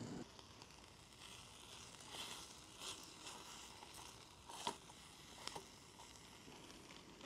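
Faint crackling of a small wood fire in a folding firebox stove, with a few sharp clicks, the loudest about four and a half seconds in.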